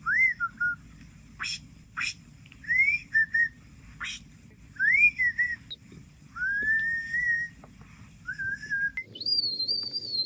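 A series of whistled notes, each a short glide that rises and then dips, with sharp clicks between them and a higher, held whistle about nine seconds in.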